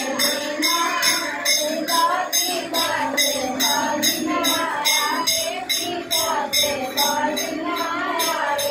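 Women singing a traditional mundan geet, a folk song for a child's first head-shaving, to a steady jingling percussion beat of about three strokes a second.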